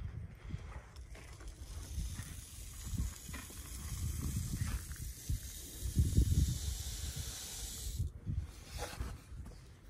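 Chicken feed poured from a metal can down a PVC pipe feeder, a steady rushing hiss of grain that stops about eight seconds in. Low rumble and bumps run underneath.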